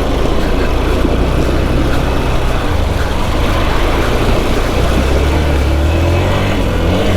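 Motorcycle engine running steadily, its low hum swelling a little past the middle, under a dense noise.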